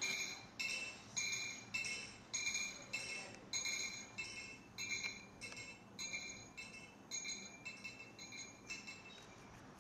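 A tinkling music-box tune: short, high, bell-like notes, about two a second, each ringing briefly and growing fainter toward the end.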